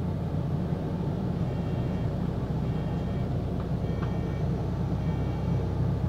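Steady low rumble of a single-deck bus's engine heard from inside the passenger saloon. From about a second and a half in, a short high beep repeats about once a second.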